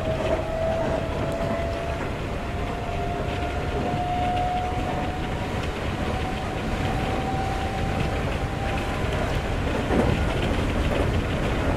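Running sound inside a Seibu 40000 series electric train. The Toshiba IGBT-VVVF inverter and permanent-magnet synchronous motors give a single motor tone that rises slowly in pitch for about nine seconds and then fades out, over a steady rumble of wheels on rail. A single knock comes about ten seconds in.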